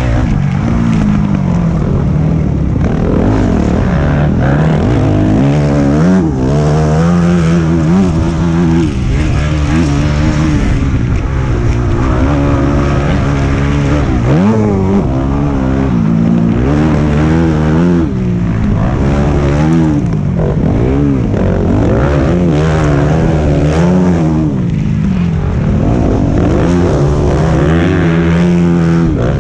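Motocross bike engine heard from on board at race pace, revving up and dropping back again and again as the rider accelerates and shuts off through the track's sections.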